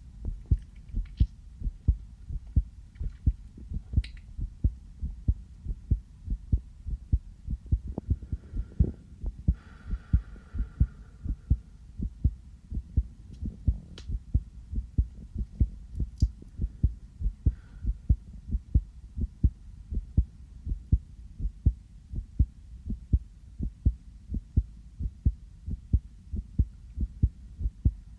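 A person's real heartbeat close to the microphone, steady regular thumps at a resting pace. A faint rustle comes in about ten seconds in.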